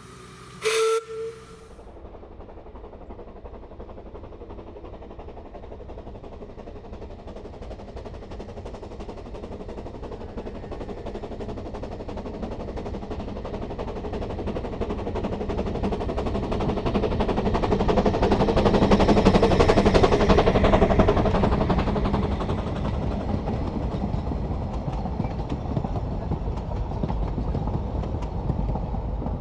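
A steam whistle gives a short two-part toot about a second in. Then a Ffestiniog Railway Penrhyn Quarry Hunslet saddle-tank locomotive works up the grade with a passenger train, its exhaust beats building as it approaches and loudest about two-thirds through as it passes, followed by the carriages rolling by.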